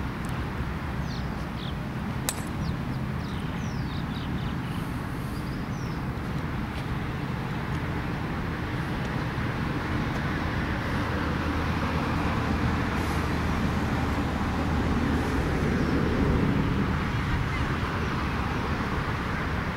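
Steady outdoor background hum of road traffic, with short high chirps early on and a single sharp click about two seconds in.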